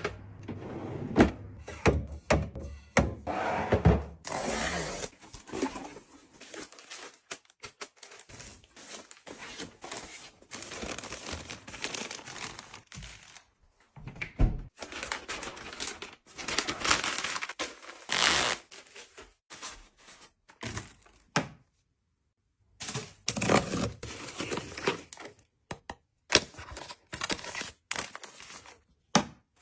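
Household items and their packaging being handled and set down: a stream of light taps and thunks on a hard surface, with stretches of plastic rustling and crinkling, broken by a short pause about two thirds of the way through.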